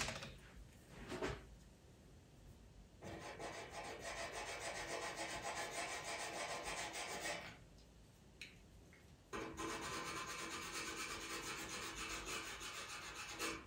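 Pastel pencil scratching across PastelMat paper in rapid short strokes, in two spells of about four seconds with a short pause between.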